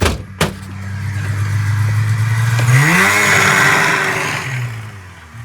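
Snowmobile's small two-stroke engine running, revved up about three seconds in and then dropping back toward idle. Two sharp knocks just at the start.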